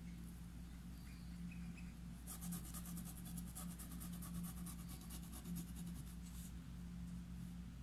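Faint scratching of a flat paintbrush working acrylic paint into fabric stretched in an embroidery hoop. It comes as rapid, even short strokes from about two seconds in, stops about four seconds later, and runs over a steady low hum.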